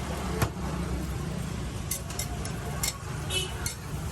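Sharp clicks and clinks of metal utensils at a roti griddle, one ringing briefly near the end, over a steady low rumble.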